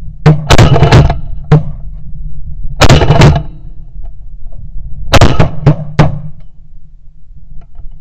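Shotgun blasts from several hunters firing together, about ten shots in three volleys: one just after the start, one around three seconds in, and one between five and six seconds in. A steady low wind rumble sits underneath.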